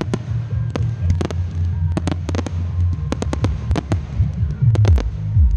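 Fireworks display: aerial shells and comets firing and bursting in a quick, irregular series of sharp bangs and cracks, over a steady low rumble with falling low tones near the end.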